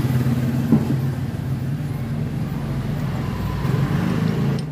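A motor or engine running steadily with a low, slightly pulsing hum. There is a single light click about three-quarters of a second in.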